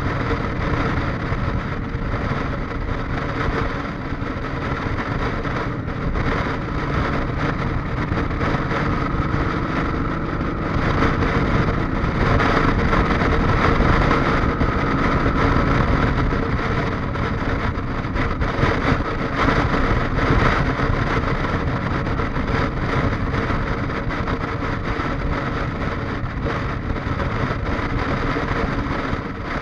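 Motorcycle running at cruising speed on the highway, a steady engine drone mixed with wind and road noise, a little louder for a stretch in the middle.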